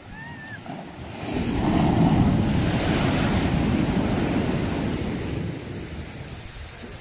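A sea wave breaking and washing up: the surf swells up about a second in, peaks, then washes out and fades over the next few seconds. A short high call sounds once at the very start.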